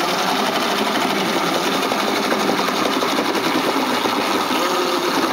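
A giant bristlebot's motor spinning an off-centre weight, shaking the wooden frame on its bristles with a loud, steady, rapid rattle.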